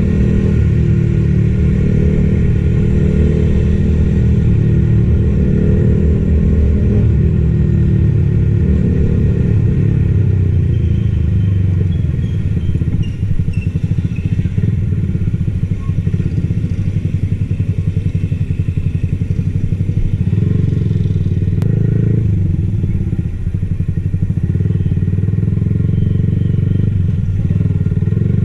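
Yamaha XSR155's single-cylinder four-stroke engine running while riding, heard raw from on the bike. The engine note eases off for a stretch in the middle and picks up again later on.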